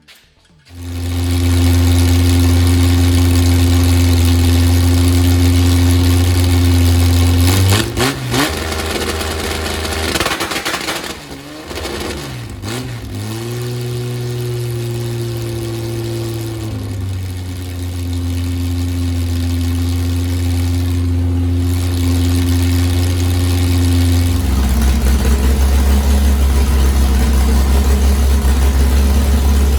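Chrysler Hemi 265 straight-six engine, with a CNC-ported head, running: it comes in suddenly under a second in and holds a steady fast idle, its speed changes several times in the middle, and near the end it settles to a lower, steady idle.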